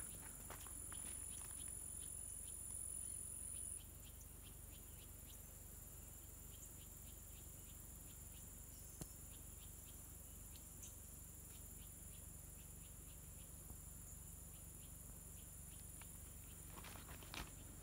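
Faint, steady high-pitched insect chorus, with one high continuous buzz cutting off about four seconds in. Footsteps on the dirt path come in near the end.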